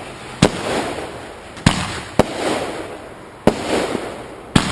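Consumer fireworks going off: five sharp bangs at uneven intervals, each trailed by a brief hissing crackle that fades out.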